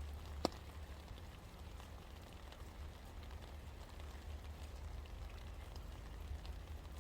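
Steady rain falling, with scattered drops tapping. One louder, sharp drop hits about half a second in. A low, steady rumble runs underneath.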